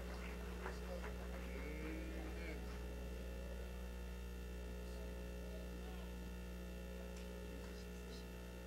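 Steady electrical mains hum, with faint murmured voices in the first couple of seconds.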